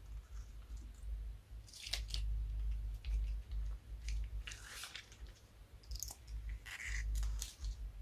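Slime being squeezed out of a plastic piping bag into a bowl: irregular bursts of squishing and crackling as the bag is pressed, in three or four clusters.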